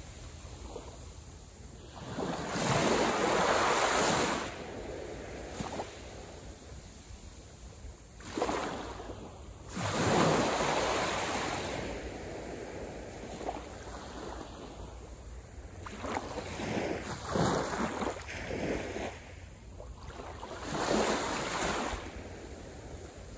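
Small waves breaking and washing up a sandy beach. About five surges of foamy wash come a few seconds apart over a low steady hiss, the loudest about ten seconds in.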